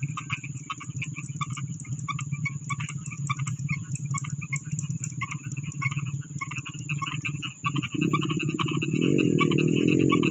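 Frogs croaking in a rice paddy: a dense chorus of quick, irregular calls over a steady low hum. About eight seconds in, a louder sound with a pitch that wavers up and down comes in.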